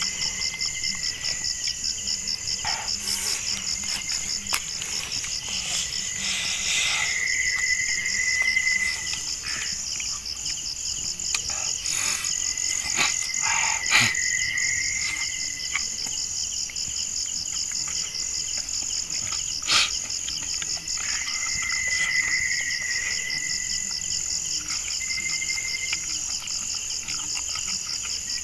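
Night insects chirping in a steady, fast-pulsing high trill, with a second, lower call that swells in and out several times. A few short sharp clicks stand out, the loudest about halfway through.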